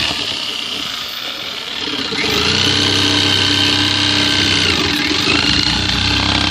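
Electric power tool running under load as it cuts through a folding trestle, its pitch shifting as the blade bites, growing louder about two seconds in.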